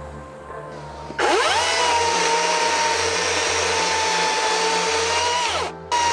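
EGO CS1614E 56V 16-inch cordless chainsaw spinning up to speed about a second in and running steadily as it cuts through fir logs. Near the end it winds down and then starts again at full speed.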